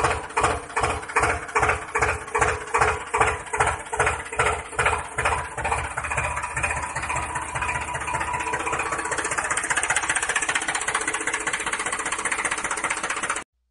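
Tractor engine chugging in regular beats, about two to three a second, then settling into a steady, even run about six seconds in. It cuts off suddenly just before the end.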